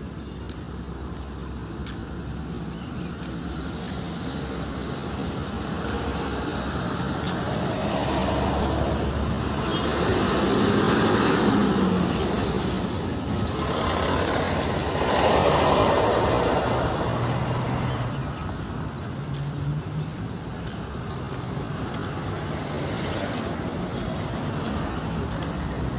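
Road traffic: a steady rumble of vehicles, with two louder passes about eleven and fifteen seconds in.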